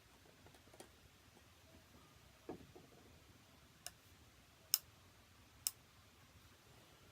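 Hunting rifle being handled: a dull knock, then three sharp clicks about a second apart.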